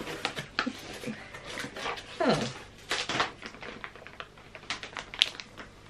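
Cardboard box flaps and a clear plastic garment bag crinkling and rustling as a jacket is unpacked, in a run of short crackles and taps. About two seconds in there is one short falling vocal sound.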